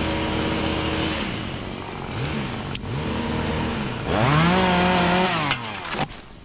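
Two-stroke chainsaw engine idling, blipped up a few times, then revved and held high for about a second before dropping back and shutting off near the end. A few sharp clicks sound along the way.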